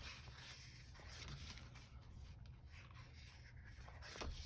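Faint rustling and scraping of paper sticker sheets being handled, with a small tick near the end.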